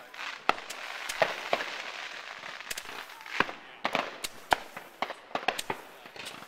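Consumer fireworks going off: an irregular string of sharp pops and cracks, several close together, over a hiss that fades out about halfway through.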